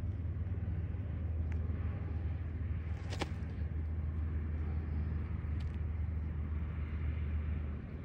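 A low steady rumble that eases off near the end, with a brief noise about three seconds in and a couple of faint clicks.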